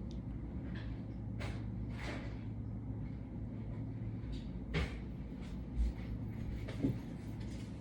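Steady low hum of room noise with scattered faint clicks and three soft knocks in the second half.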